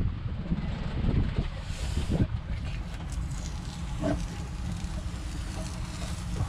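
Wind buffeting the microphone in a steady low rumble, with a few faint rustles as masking tape is peeled off a fresh sealant bead on timber.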